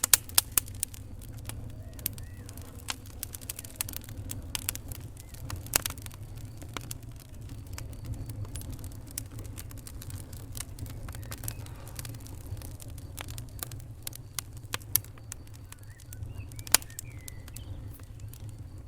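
Wood fire burning in a fireplace, crackling with irregular sharp pops, a few much louder than the rest, over a steady low rumble.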